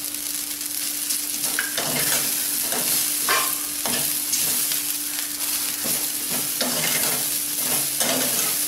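Rice-flour dumplings and chopped vegetables sizzling in a little oil in a nonstick kadai while being stirred with a steel spatula, which scrapes and taps the pan every second or so.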